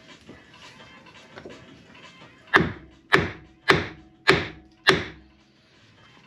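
Hammer blows on a wooden block held against the underside of a car's front suspension knuckle. Five sharp, loud knocks land about 0.6 s apart, starting a little before halfway through.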